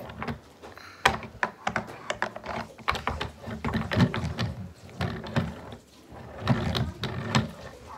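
Plastic toy sleigh being pushed and handled on a tabletop: irregular clicking and clattering, with a few dull knocks.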